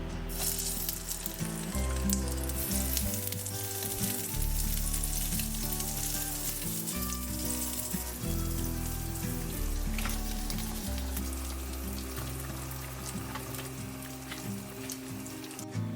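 Food frying in a hot pan: a steady sizzle that starts suddenly at the beginning and cuts off just before the end, with a few light clicks of stirring. Background music plays underneath.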